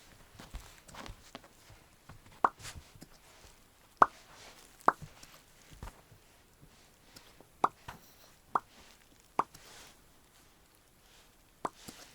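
Small puppy hiccupping: seven short, sharp hiccups at irregular gaps of about one to three seconds.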